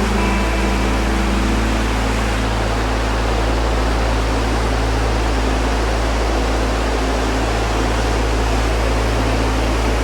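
Steady, even rushing hiss with a low hum beneath it; a few held music notes fade out in the first second or so.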